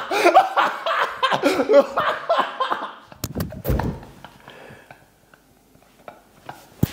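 Laughter for about the first three seconds, then a few low knocks and thumps from objects being handled, then near quiet.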